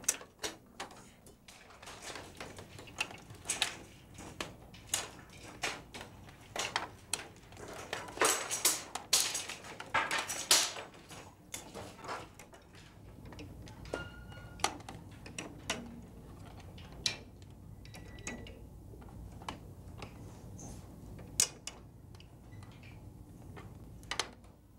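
Plastic weights clicking and clacking on the pegs and arms of plastic math balances as they are hung on and taken off, many separate sharp clicks, busiest in the middle.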